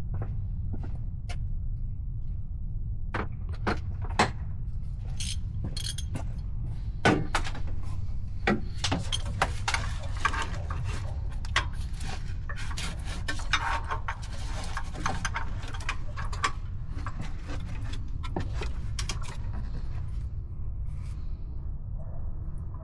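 Metal hand tools clinking and knocking in a truck's engine bay as a 1/2-inch ratchet is fitted to the serpentine belt tensioner: many sharp clicks, thickest in the middle. A steady low rumble runs underneath.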